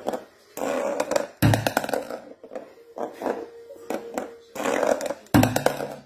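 African grey parrot growling in repeated short, noisy bursts, the defensive sound of an angry grey. Two thumps stand out, one about a second and a half in and one near the end.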